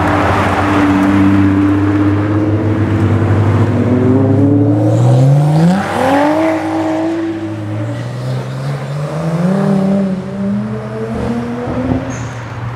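Performance car engines accelerating away. A steady engine note climbs sharply in pitch about five seconds in, then falls back and rises again in the second half.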